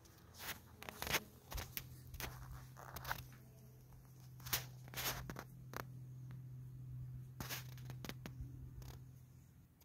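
Handling noise from a phone being carried and moved: scattered sharp clicks and rustles at an uneven pace, over a steady low hum that starts about a second in and cuts off near the end.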